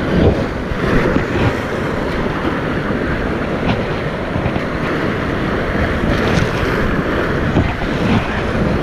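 Whitewater rapids rushing and splashing against an inflatable kayak as it is paddled through them.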